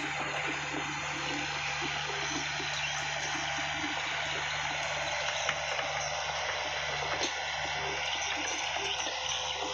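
Diesel engine of heavy earthmoving machinery running steadily, a low hum under a constant rushing noise.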